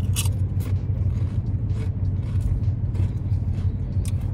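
Tortilla chips crunching as they are bitten and chewed, in short irregular crunches, over the steady low rumble of the Ford E-350 camper van's engine running.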